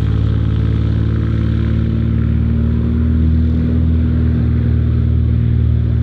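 Cessna 180's six-cylinder engine and propeller running at full takeoff power, a steady drone.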